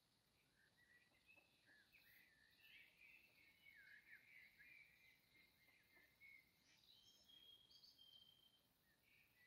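Faint birdsong: a jumble of quick chirps and short whistled glides, busiest in the middle and thinning out near the end, over a soft steady hiss.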